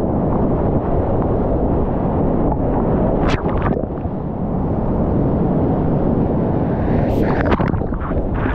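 Whitewater rapids of the South Yuba River at high water rushing loudly and steadily all around a kayak, heard close up from the boat, with wind and spray buffeting the camera microphone. Short sharp splashes cut through about three seconds in and again around seven seconds in.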